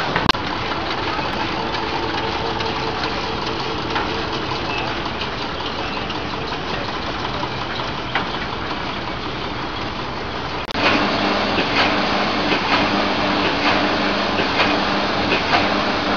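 A stationary engine running steadily with rapid, regular knocking, starting abruptly about two-thirds through. Before it comes quieter, steady machinery noise.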